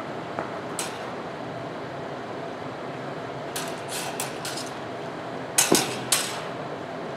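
Rapier blades clinking together in a fencing exchange: one light click under a second in, a quick flurry of four or five clicks near the middle, then three sharper, louder clashes in quick succession about two seconds later. A steady hiss of hall ambience runs underneath.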